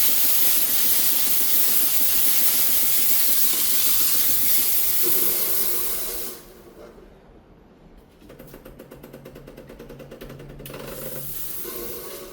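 Espresso machine steam wand being flushed: a loud, steady steam hiss for about six seconds that cuts off abruptly. Then comes a quieter, fast rhythmic mechanical buzz, and a weaker short hiss near the end.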